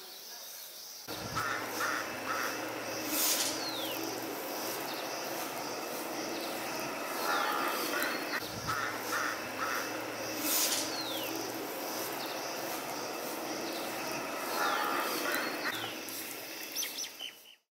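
Birds calling outdoors over a steady hiss of background ambience: clusters of short chirps come three times, and a falling whistled call comes a few times. The sound cuts off abruptly near the end.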